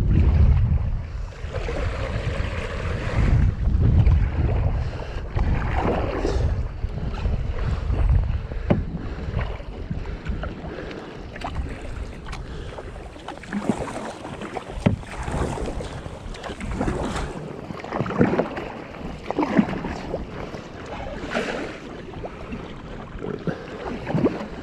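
Kayak paddle strokes splashing in choppy water, one about every two seconds, with wind buffeting the microphone as a low rumble that eases in the second half.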